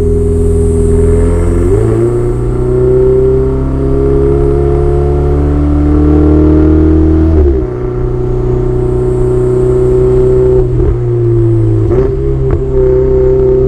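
Ferrari 488 Spider's twin-turbo V8 engine and exhaust under way, its note holding or rising slowly, with sudden steps in pitch about two seconds in, about midway, and near the end.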